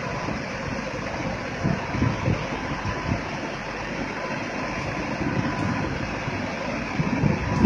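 Caterpillar backhoe loader's diesel engine running, over the steady rush of a flooded river.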